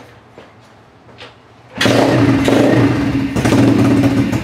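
Apollo RFZ 125cc pit bike's four-stroke single-cylinder engine kick-started from cold with the choke on. After a couple of light clicks it catches about two seconds in and runs steadily and loudly.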